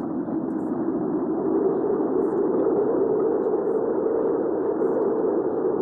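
Hurricane wind ambience: a steady, dull, muffled rush of strong wind whose pitch drifts slightly higher over the few seconds.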